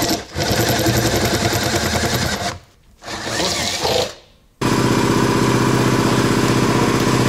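Cordless drill-driver running in bursts against a plastic roof spoiler: a run of about two and a half seconds, a short burst in the middle, then a long steady run from just past halfway.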